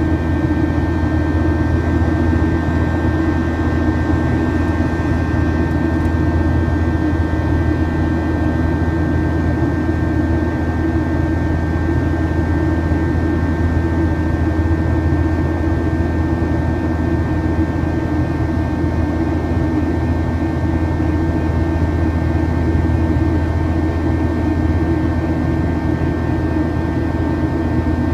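Cabin noise inside a Boeing 737-800 in flight: the steady drone of its CFM56 turbofan engines and the airflow, with a few thin, steady whining tones above it.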